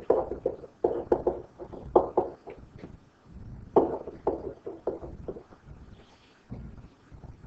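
A stylus writing on a tablet: irregular clusters of short taps and knocks as each word is handwritten, with gaps between strokes.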